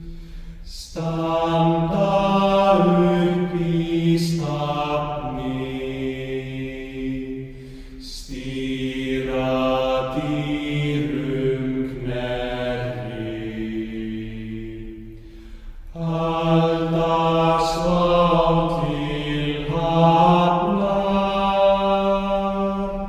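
Soundtrack music: slow, chant-like singing in long held notes that glide slowly between pitches, in phrases that break off every few seconds, over a faint steady low drone.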